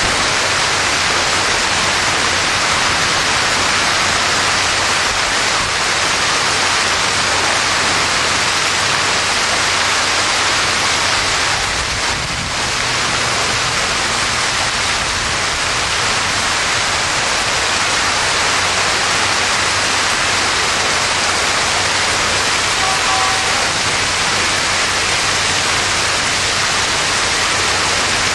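Large hail mixed with heavy rain pounding down, a loud, steady, dense hiss that dips briefly about twelve seconds in. A short faint beep sounds about five seconds before the end.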